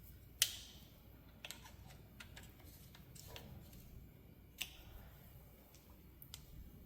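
Scattered light metallic clicks and taps as an Allen wrench and the plasma torch mount are handled and set in position, with two sharper clicks, one about half a second in and one past the middle, over a low steady hum.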